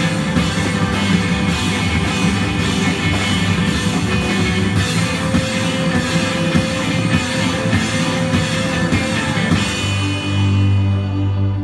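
Live rock band playing: drum kit with cymbals, electric guitar, bass guitar and keyboard. Near the end the cymbals and drums fall away, leaving held low notes.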